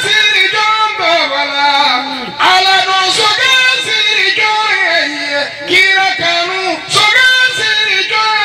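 A man singing a Sufi poem into a handheld microphone in a high voice, the melody gliding and ornamented in long phrases with short breaths between them.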